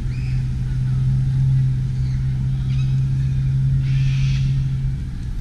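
A motor vehicle's engine running with a steady low hum that stops about five seconds in.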